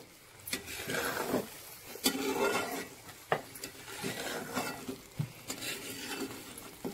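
A metal spoon stirring and scraping a thick masala paste as it fries on high flame in a metal pan, with scattered clicks where the spoon knocks against the pan.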